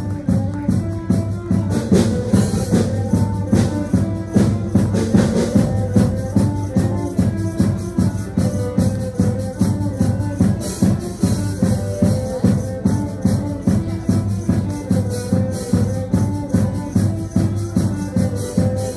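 Instrumental music with a steady, regular beat over a sustained low bass note and a simple repeating melody.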